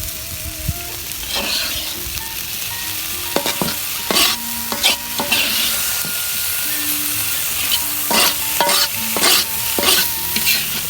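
Stir-fry of salted fish, tempeh and eggplant sizzling in a pan, with a spatula scraping and stirring it every second or so.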